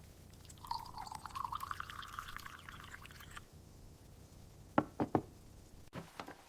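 Liquid pouring into a vessel, a crackly tone that rises in pitch for about three seconds as it fills. It is followed about five seconds in by three sharp knocks in quick succession.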